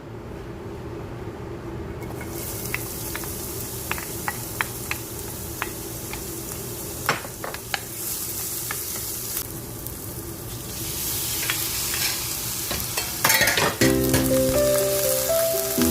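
Food sizzling and frying in hot oil in a pan, with scattered sharp clicks of a utensil against the pan as it is stirred. Background music comes in near the end.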